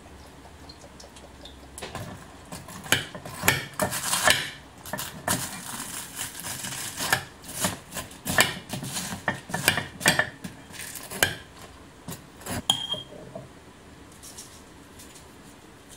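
Metal spoon stirring and mashing wheat-biscuit cereal into milk in a ceramic bowl: a run of clinks and scrapes against the bowl that dies down a few seconds before the end.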